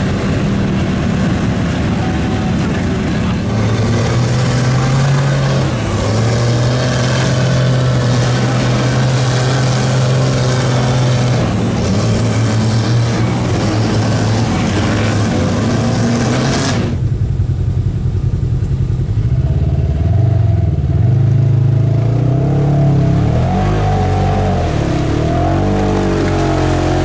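Off-road truck engines running loud and revving, their pitch holding and then rising and falling. About 17 seconds in the sound abruptly turns duller, with the bright upper range gone.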